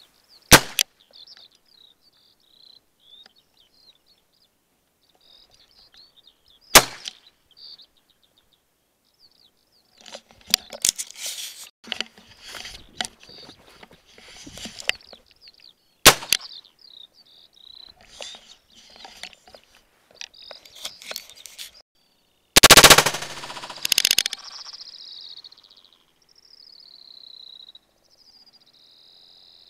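Sharp gunshots fired at a flying bird, several seconds apart: one right at the start, one near seven seconds, one at sixteen seconds, and a louder, longer blast about three quarters of the way through. Short high chirping calls come between the shots.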